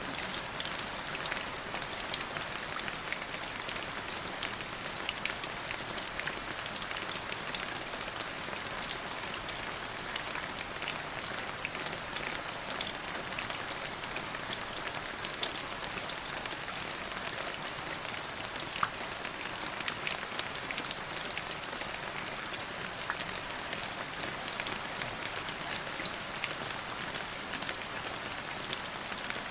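Steady rain falling in a rainstorm: a dense, even hiss of drops, with sharper individual drop hits standing out, one louder about two seconds in.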